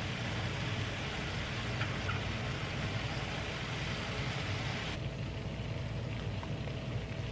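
Steady kitchen hiss with a low hum under it, and a few light clinks of metal tongs against a ceramic bowl as stir-fry is served from the pan. The hiss turns duller about five seconds in.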